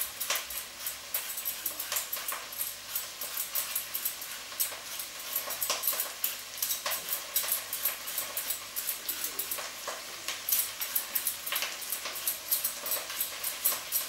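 An apple being sliced in the hand with a small kitchen knife: irregular crisp cuts, several a second, as the knife goes through the flesh and the slices drop onto a plastic cutting board.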